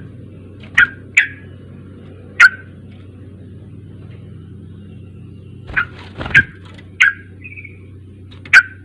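Yellow-vented bulbul (trucuk) calling: about seven loud, short, sharp notes at uneven spacing, each dropping quickly in pitch, over a steady low background hum.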